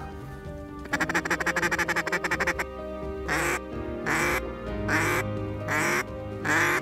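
Mallard-type duck quacking: a fast chatter of quick notes for under two seconds, then a steady series of five loud, falling quacks about a second apart, over background music.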